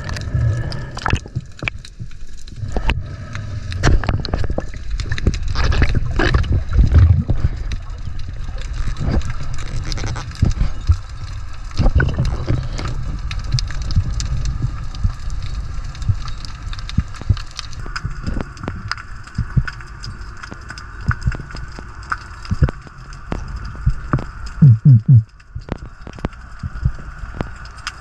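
Underwater sound picked up through a camera's waterproof housing: a low muffled water rumble with many sharp clicks and crackles. A faint steady high whine comes in about two-thirds of the way through, and a few loud low thumps sound near the end.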